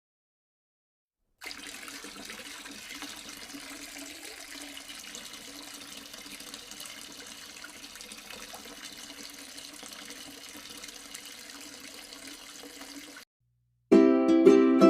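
Water from a small tabletop waterfall fountain falling and splashing steadily. It starts suddenly and cuts off abruptly; shortly before the end, ukulele music begins, much louder.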